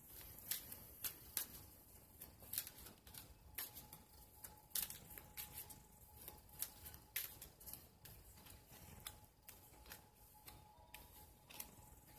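Tarot cards being shuffled and handled by hand: a faint, irregular run of soft card snaps and clicks, one or two a second.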